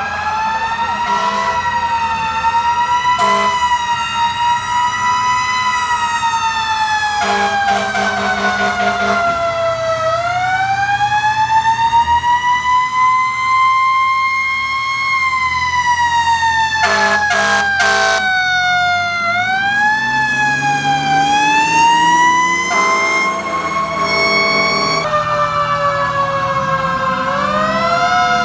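Fire truck sirens wailing, rising and falling slowly in pitch, broken by repeated air horn blasts, some short and some held for a couple of seconds. Near the end a second siren overlaps at a different pitch.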